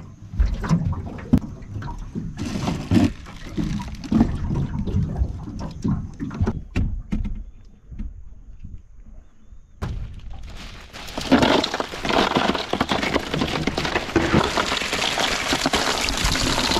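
Ice cubes poured into a plastic cooler, a dense rattling clatter that starts about ten seconds in and is the loudest part. Before that, scattered knocks and thumps on the boat deck.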